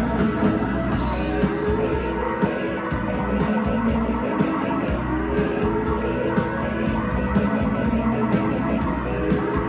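Instrumental break in a rock song: guitar over bass and a steady drum beat, with no singing.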